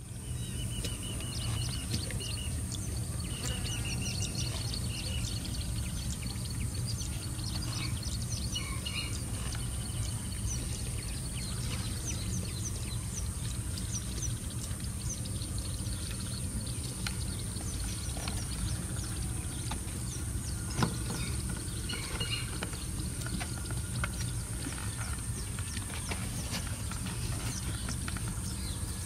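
Scrubland ambience: birds calling in repeated short chirps over a steady high whine and a low steady rumble, with one sharp knock about two-thirds of the way through.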